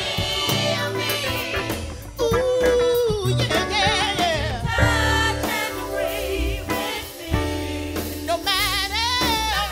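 Women's gospel vocal group singing with a live band: a lead voice with strong vibrato, holding one long note about two seconds in, over backing voices, bass and drums.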